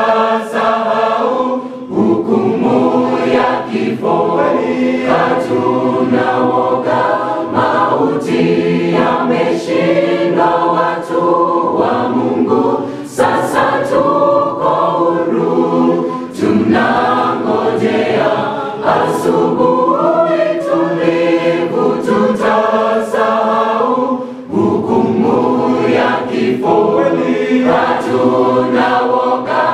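Vocal group singing a Swahili gospel song, several voices together in continuous phrases.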